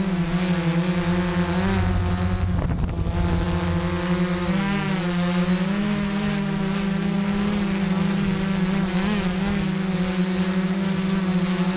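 DJI F550 hexacopter's six motors and propellers buzzing in flight, the pitch wavering up and down as the motors adjust their speed. A thin steady high tone sits above the buzz.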